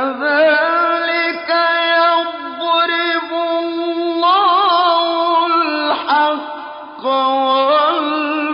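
A male Quran reciter chanting in a slow, melodic tajweed style, holding long notes with wavering ornaments, with a short break for breath about six to seven seconds in.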